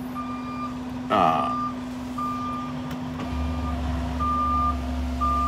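Reversing alarm on a backing semi-truck, beeping about once a second. A truck engine's low rumble comes in about three seconds in.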